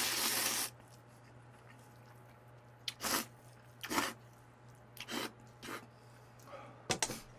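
A person slurping up a mouthful of spicy mixed noodles: one long loud slurp at the start, then quiet chewing broken by a few short slurps and mouth sounds.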